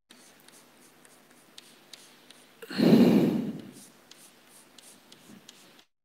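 Chalk scratching and tapping on a blackboard while lines are drawn, heard as faint, scattered short ticks. About three seconds in, a much louder rush of noise lasts about a second.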